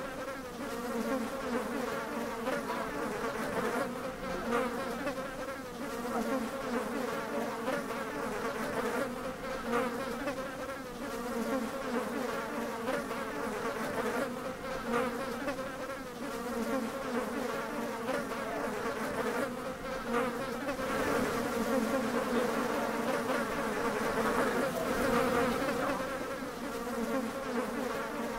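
A continuous buzzing drone with a wavering pitch, getting a little louder for a few seconds past the middle.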